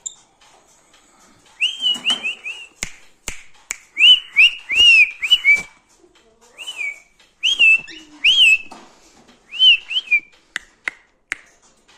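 Short whistled notes, each sliding up then down, in quick runs of three or four, mixed with sharp clicks. Near the end, single sharp snaps come about every half second.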